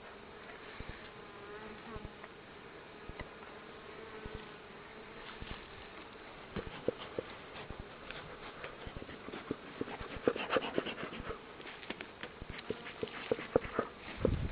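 Honeybees buzzing as a steady hum around an opened hive, with short sharp clicks and knocks that come more often in the second half as the hive is worked.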